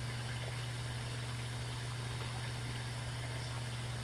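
Glassblowing bench torch burning steadily with a constant rushing hiss, over a low steady hum.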